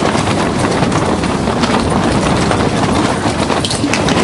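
Strong wind buffeting the fabric walls of an ice-fishing tent: a loud, dense, steady rustle full of rapid crackles.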